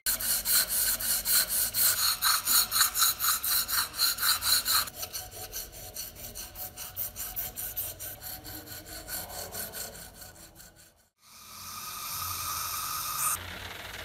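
Hand tool being worked back and forth against a part, rubbing and scraping at about four or five strokes a second. The strokes are heavy for the first five seconds, then lighter. After a brief cut near the end, a steadier rubbing noise follows.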